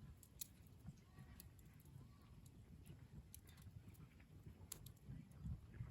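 Faint wood campfire crackling: scattered single sharp pops and ticks over a low rumble.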